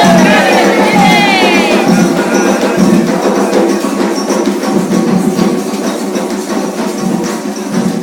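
Afro-Brazilian ritual percussion: drums and rattling, shaken percussion playing a dense, steady rhythm, with voices singing over it for the first two seconds or so.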